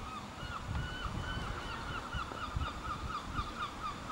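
A bird calling a rapid run of short repeated notes, about four a second, falling a little in pitch toward the end, over a low rumble.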